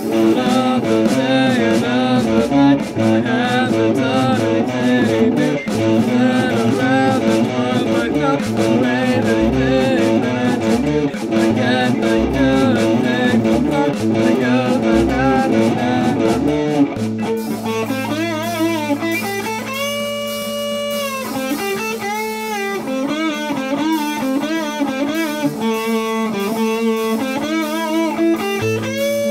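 Instrumental guitar section of a song. A busy run of quickly picked notes gives way, a little past halfway, to slower held notes that waver in pitch over a steady low note.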